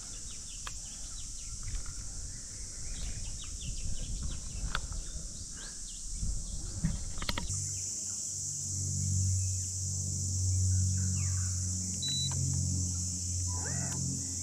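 Birds chirping over a steady high buzz of insects. About halfway through, the sound changes abruptly to a low, steady hum whose notes shift in steps.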